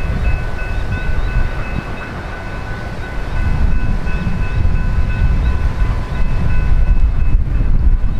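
Vintage Tait electric multiple-unit train approaching, its low rumble on the rails growing louder through the second half. Steady high-pitched tones with short, regular breaks run above the rumble and stop about two-thirds of the way in.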